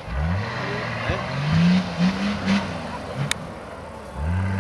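Nissan Patrol 4x4's engine revving hard off-road, its pitch rising in repeated surges as the driver gets on the throttle. There is a single short, sharp click about three seconds in.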